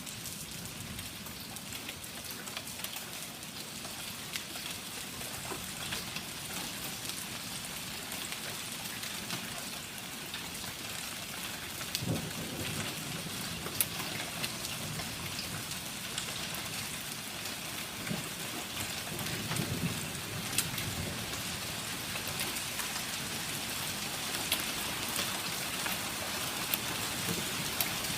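Hail and rain pelting down steadily, with many sharp individual ticks of hailstones striking hard surfaces. Brief low rumbles come in about twelve seconds in and again near twenty seconds.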